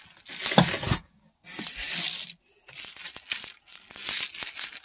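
Clear plastic packaging bags crinkling and rustling as they are handled, in four bursts with short pauses between.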